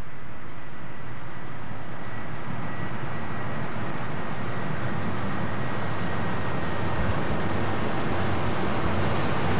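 Diesel-hauled passenger train rolling into a station past the camera: a steady rumble of engine and wheels on rails that grows fuller as the train passes. A thin high steady tone joins about a third of the way in.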